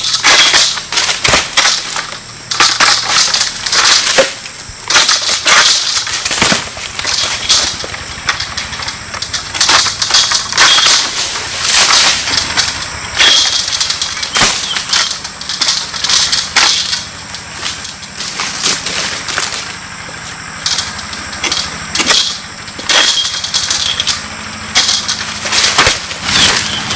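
Pole-mounted harvesting sickle (egrek) cutting into oil palm fronds and wedged fruit-bunch stalks high in the crown: repeated, irregular sharp rasping strokes and cracks.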